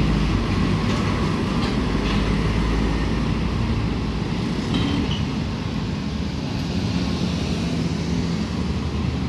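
A large intercity coach's diesel engine running as the bus passes close by and pulls away. It is a steady low drone, loudest in the first seconds and easing somewhat as the bus draws off.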